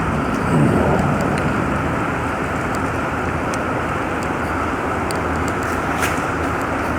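Steady vehicle and traffic noise, with a brief swoop down and back up in pitch about half a second in.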